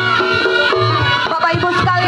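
Reog Ponorogo music: a reedy slompret (shawm) melody winding over hand drums, with a low drum beat recurring about once a second.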